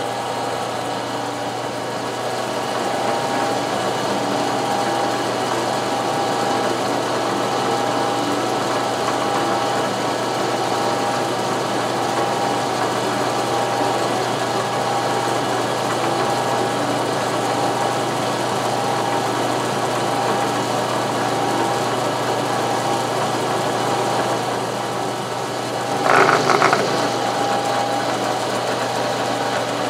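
Milling machine running, its end mill cutting a circle into an aluminum plate: a steady motor hum with the whir of the cut, and a brief louder patch near the end.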